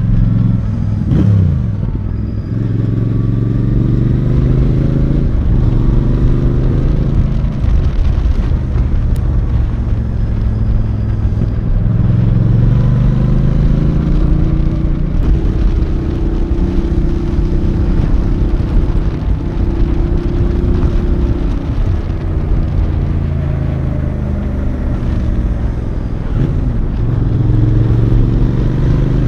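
Royal Enfield Bear 650's 648cc parallel-twin engine pulling the bike along the road. The engine pitch climbs and drops several times as the bike speeds up and slows, with a sharp fall in revs about a second in.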